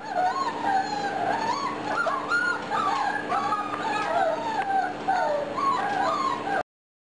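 Several 4½-week-old German Shorthaired Pointer puppies whining and yelping together in overlapping, rising and falling cries, cutting off suddenly near the end.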